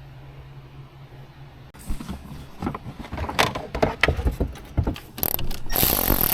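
A steady low hum, then, from about two seconds in, irregular clicks, knocks and clattering of car parts and tools being handled, with a loud rushing scrape near the end.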